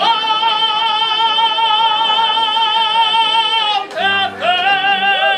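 Male operatic tenor singing bel canto, holding one long high note with a steady vibrato for nearly four seconds. The note breaks off, and he goes on into a short phrase of shorter notes near the end.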